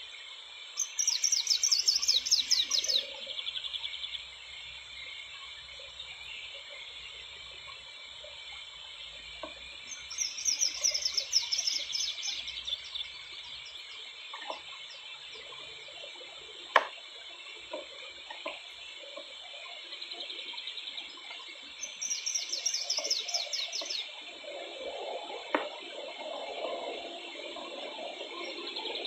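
A small songbird singing a rapid, high, descending trilled phrase three times, each phrase lasting two to three seconds, about ten seconds apart, over a steady high-pitched background chorus.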